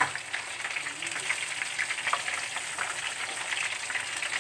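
Hot cooking oil sizzling and crackling steadily in a frying pan, with a dense patter of small pops.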